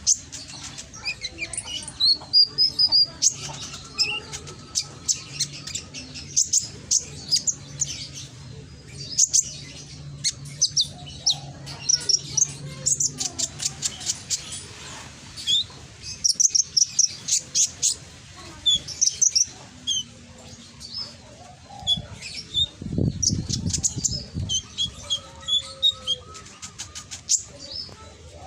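Kolibri ninja (konin) sunbird singing: a fast, continuous string of sharp high-pitched chirps and trills. A brief low rumble comes in a little past two-thirds of the way through.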